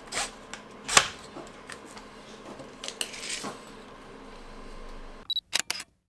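Handling noise from a plastic ARP9 gel ball blaster: scattered clicks and knocks as its stock is unfolded, the loudest knock about a second in, then a quick cluster of sharp clicks near the end.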